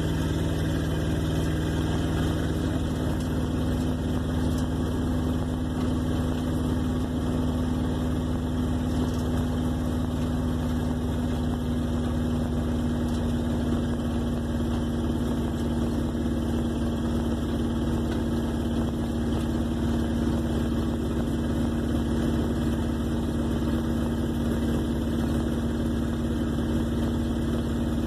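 1958 Plymouth Suburban engine idling steadily.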